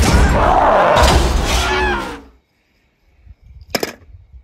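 Loud animated-film soundtrack, a dense mix of music and gliding pitched sounds, cuts off about two seconds in. After a short silence, a single sharp clack of die-cast toy cars near the end.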